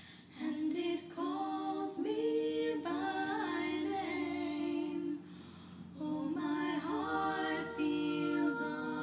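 Slow a cappella female singing: long held notes sounding together in harmony, pausing briefly about five seconds in before the next phrase.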